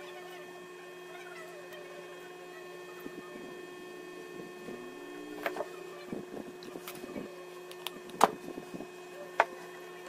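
Steady electrical hum with a few sharp clicks and taps as a phone's logic board and small parts are handled on a table, the loudest click about eight seconds in.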